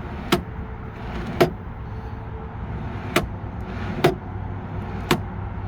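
Pull-out storage tray in an RV bay running in and out on freshly lubricated ball-bearing slides, knocking against its stops five times.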